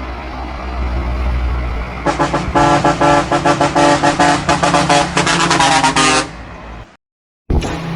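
A heavy truck's engine runs with a steady low rumble. About two seconds in, a custom multi-tone air horn starts, sounding in rapid pulsing toots for about four seconds before it fades. After a brief silence, a burst of rapid loud beats follows near the end.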